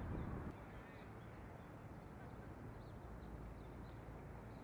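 Steady outdoor background noise at a ball field, with a low rumble of wind on the microphone for about the first half second and a few faint short high chirps now and then.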